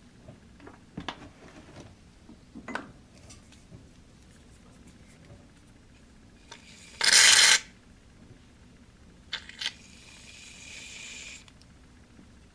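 Slime ingredients being handled and dispensed: light taps and clicks of containers, a loud short squirting burst about seven seconds in, then two clicks and a steady hiss lasting about a second and a half.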